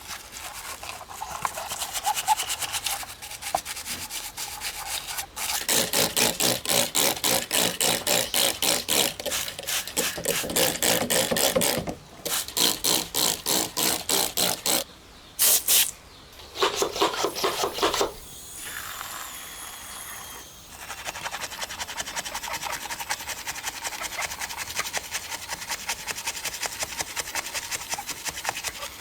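A brush scrubbing back and forth over a small diecast model car, in even strokes about two to three a second that stop and restart a few times.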